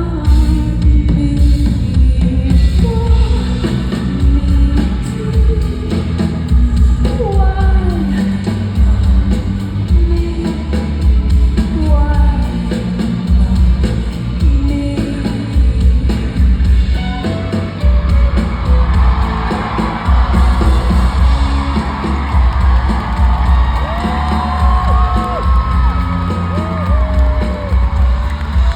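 Live band music with sung vocals and a strong pulsing bass beat, heard from within the audience in a large hall. The crowd cheers and whoops over the music through the second half.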